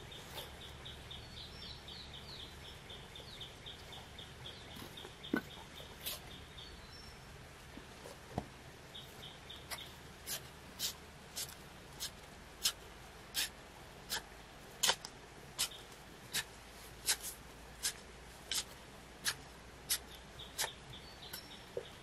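A rapid, high-pitched chirping trill repeats several times. From about ten seconds in, a steady series of sharp knocks or strikes comes roughly every three quarters of a second and is the loudest sound.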